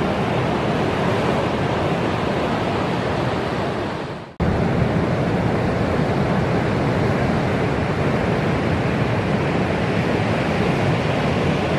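Ocean surf breaking, a steady rushing noise of waves. Just over four seconds in it fades out to near silence and cuts straight back in.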